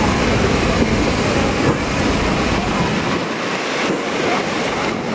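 Wind buffeting the microphone in stormy, rainy weather: a loud, steady rushing noise whose deep rumble drops away about three seconds in.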